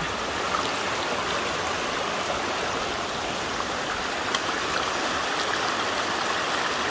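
Shallow stream running over rocks and stones, a steady rush of water.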